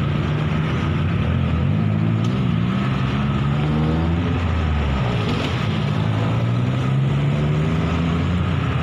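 GE CC 201 diesel-electric locomotive's engine running with a low, steady drone as the train moves off along the line; its note dips and shifts about halfway through.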